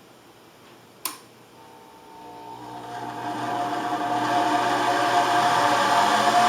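A click, then the Precision 2000 hobby band saw's motor running up and holding a steady whine, growing louder over a couple of seconds as its speed is turned up on the rheostat.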